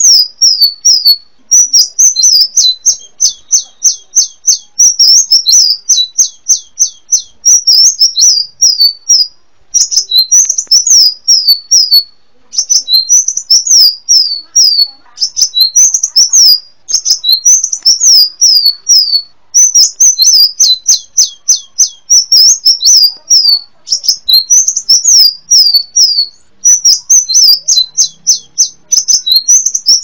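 Kolibri wulung, a sunbird, singing: rapid, high-pitched chattering phrases of short falling notes, repeated over and over with brief pauses between runs.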